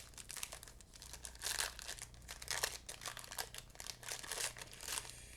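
Plastic wrapper of a 2021 Topps Gallery baseball card pack being torn open and crinkled in irregular crackling bursts.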